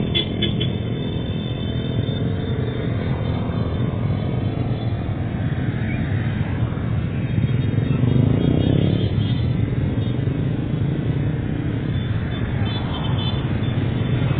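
A convoy of many small step-through and underbone motorcycles riding slowly past, their engines blending into a steady drone. About halfway through, one engine's note rises and the drone gets a little louder.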